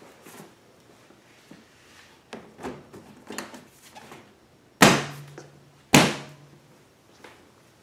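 Plastic side cover of a DuroMax XP16000iH generator being fitted back onto the housing: a few light knocks and rattles, then two loud sharp thunks about a second apart as the panel is pushed into place.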